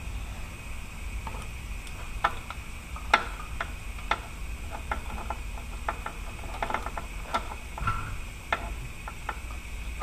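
Ratchet wrench clicking in short, irregular runs as a starter mounting bolt is run in, over a steady low background hum.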